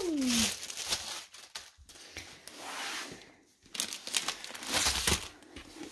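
Packaging being handled: crinkling and rustling in irregular bursts, with a few sharp clicks and short pauses between.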